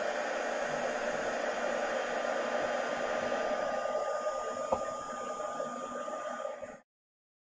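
Handheld embossing heat tool ('Föhn') blowing steadily with a whir and a faint steady whine, melting gold embossing powder on stamped card; it stops abruptly near the end.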